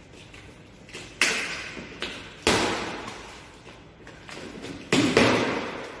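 Cardboard box being torn open by hand: packing tape ripped and flaps pulled apart, three loud rips about a second and a half to two and a half seconds apart.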